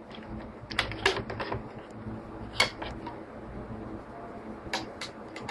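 Irregular light clicks and taps of small wooden model parts and rubber bands being handled on a wooden ship-model hull, in a cluster about a second in, one sharper tap midway and several more near the end, over a low steady hum.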